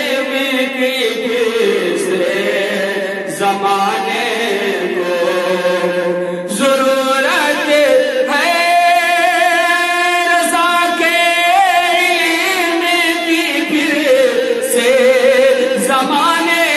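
A man singing an Urdu naat, a devotional song in praise of the Prophet and Madina, solo into a handheld microphone, drawing out long held notes with a wavering, ornamented pitch.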